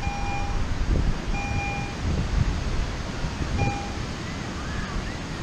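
Metal detector sounding three short, same-pitched target beeps as its coil passes over buried metal, the second beep the longest, over steady wind buffeting the microphone.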